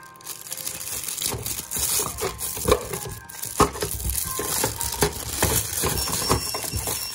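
Thin clear plastic bag around a new radio battery being crumpled and handled, giving irregular crinkling and crackling with sharp clicks. It gets louder about a second in.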